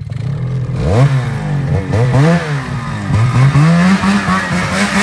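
Snowmobile's two-stroke engine revving hard, its pitch rising and falling again and again as the throttle is worked on a steep snow climb.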